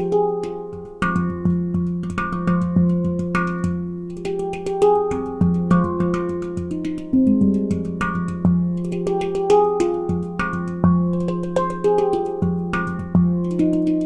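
McCarthy nitrided-steel handpan tuned to an F low Pygmy scale, played with the fingers and hands: a continuous run of struck notes, several a second, each ringing on into the next, over a deep low note that sounds again and again.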